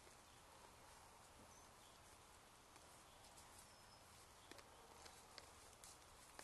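Near silence: a steady faint hiss with scattered faint clicks, a few of them close together near the end.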